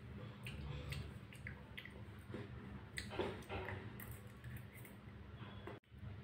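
Faint sounds of a child eating noodles: a metal spoon scraping and clicking on a plate, with chewing. The clicks are short and scattered, with one louder noise about three seconds in.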